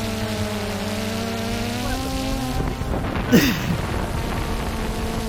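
Quadcopter drone's propellers humming steadily, the pitch shifting briefly about two seconds in, with a short sharp sound about three seconds in.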